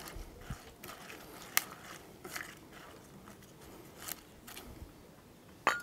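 Fresh tarragon crushed by hand into a stainless steel pot: a faint, irregular crackling and rustling of leaves and stems under the fingers, with one sharper knock near the end.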